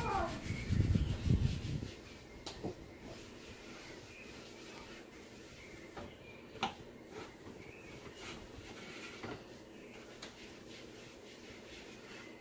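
A hand-held wipe rubbing across a painted kitchen cabinet door, scrubbing off chalk paste. The rubbing is heaviest for the first couple of seconds, then goes quieter, with a few light knocks against the door.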